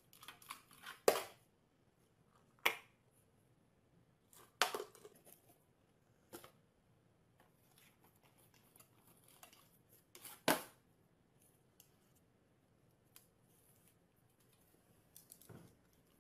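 A small dog's paws and claws knocking and scraping a tin can and a cardboard box on a glass-topped table: a handful of sharp clacks, the loudest about a second in, with faint scratchy rustling between.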